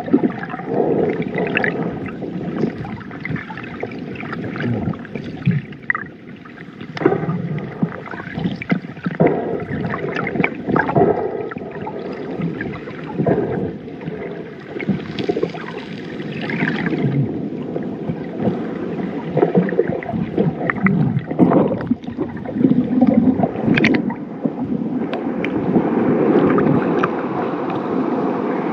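Muffled underwater sloshing and gurgling of seawater heard through a submerged camera, coming in irregular swells. Near the end the camera breaks the surface and the sound turns into a steadier wash of water.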